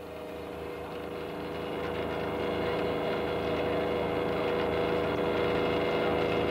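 Deck winch motor running steadily as it hauls a wire rope line up from the sea floor, a constant mechanical hum that grows louder over the first two seconds.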